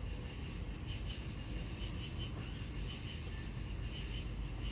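Crickets chirping faintly in short repeated pulses over a steady low hum.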